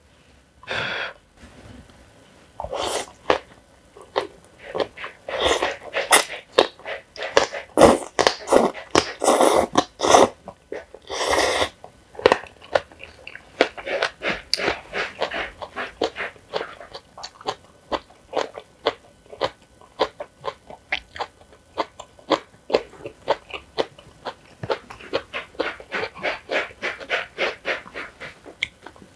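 A person slurping thick black-bean-sauce (jjajang) ramen noodles in several long, loud pulls over the first half, then chewing with rapid wet smacks and clicks.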